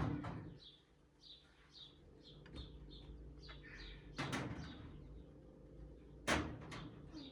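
A small bird chirping over and over, about twice a second, with a few sharp knocks in between, the loudest about six seconds in.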